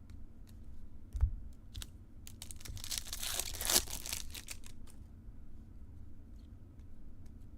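A Topps Chrome card pack's foil wrapper being torn open and crinkled, with a rasping tear lasting about two seconds near the middle. Light clicks and a thump of cards being handled come before and after it.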